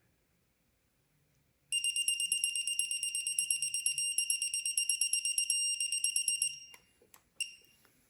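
A rapid, high-pitched alarm-like beeping for about five seconds, starting a little under two seconds in, followed by a few sharp clicks and one short beep near the end.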